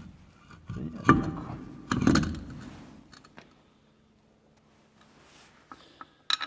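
A few sharp metallic clicks and knocks, each ringing briefly, then quiet with a few faint clicks near the end, as of metal parts or tools being handled.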